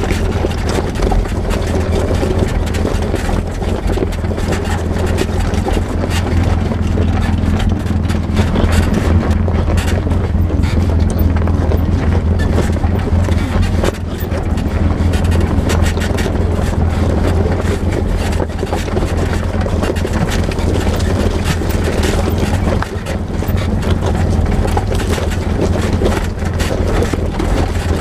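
Polaris RZR side-by-side UTV's engine running steadily with a low drone as it drives over a rocky trail, with clicks and rattles from the rough ground.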